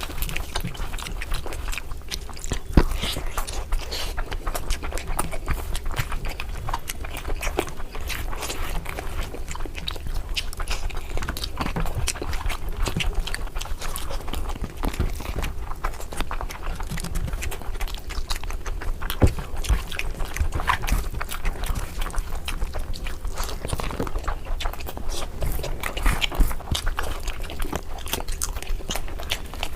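Close-miked eating sounds: a person chewing and biting curry, with many irregular sharp mouth clicks and smacks over a low steady hum.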